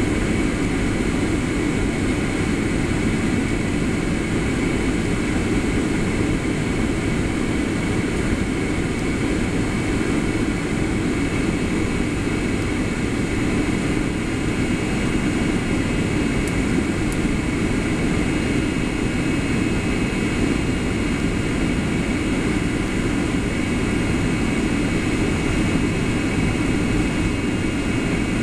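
Steady low roar inside the cabin of a Boeing 757-200 airliner descending to land: jet engine and airflow noise, with a few faint steady high tones above it.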